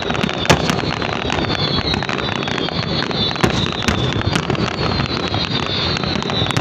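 Fireworks display: sharp bangs of bursting shells at irregular intervals, roughly one or two a second, over a continuous dense noise of the show.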